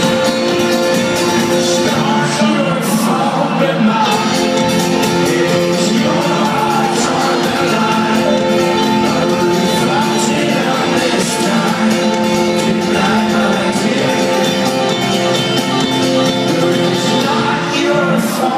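Folk-rock band playing live in a large arena with a man singing, heard from among the audience, with the hall's echo.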